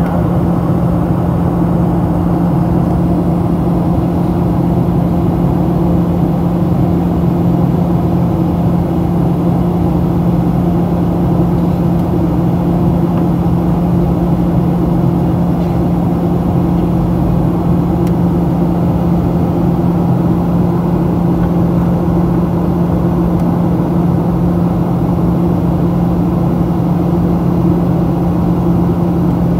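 Steady cabin noise inside a Boeing 737-700 in flight: the drone of its CFM56 engines and the rush of air, with a strong constant hum under it.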